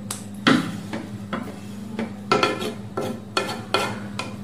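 Wooden spatula stirring a thick cream-based chicken curry in a non-stick kadai: repeated scrapes and soft knocks against the pan, about two a second.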